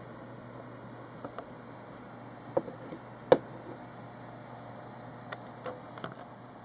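Handling noise from a small 8 cm Aiwa speaker unit turned in the hand: scattered small clicks and knocks from its metal frame, the loudest a little over three seconds in, over a steady low hiss and hum.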